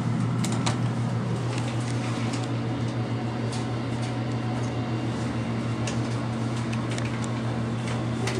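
Elevator cab travelling between floors: a steady low hum from the drive machinery, with a few light clicks.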